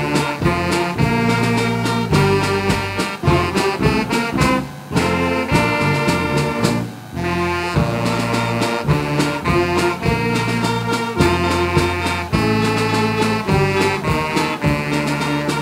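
Upbeat instrumental music with a steady beat and a bass line.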